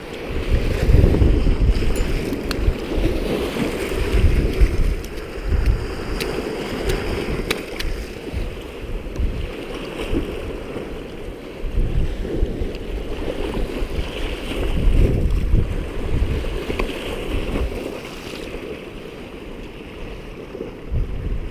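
Strong gusty wind buffeting the microphone over choppy river waves washing against the bank, with a few small clicks and taps. The gusts ease somewhat near the end.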